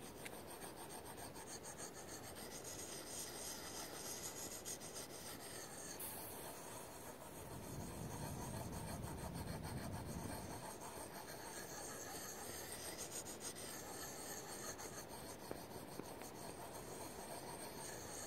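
A small knife blade being scraped over and over against a small handheld grey block, making a steady rasping rub that gets heavier for a few seconds in the middle.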